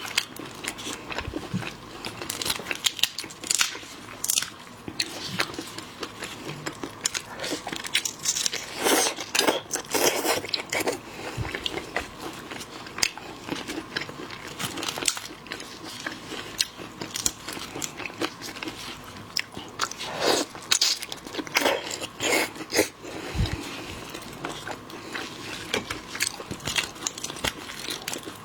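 A person biting and chewing seafood: a run of irregular crunches and sharp cracks, densest about a third of the way in and again about three quarters through.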